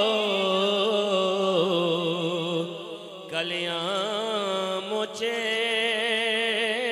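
A man's solo voice chanting a manqabat, a Sufi devotional verse in praise of a saint, in long drawn-out notes with a wavering vibrato, breaking off briefly about three seconds in before the next held phrase.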